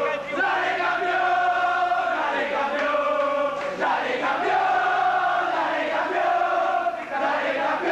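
A crowd of men singing a football chant together in unison, the tune carried in long held notes with a couple of brief breaks between phrases.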